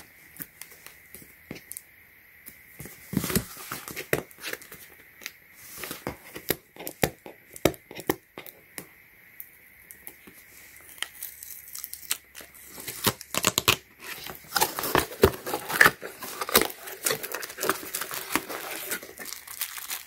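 A cardboard product box being opened by hand: irregular tearing and scraping of the flap and tape, then a steadier run of crinkling as the plastic wrapping and a small plastic bag are handled in the last third.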